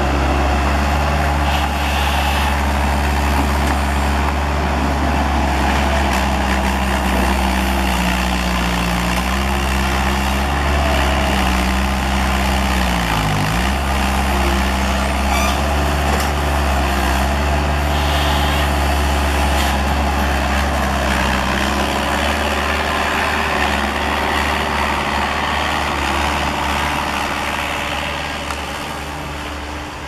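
Bobcat S130 skid-steer loader's diesel engine running loud and steady while it works, its revs dipping sharply and coming back up about halfway through, then the sound falls off near the end.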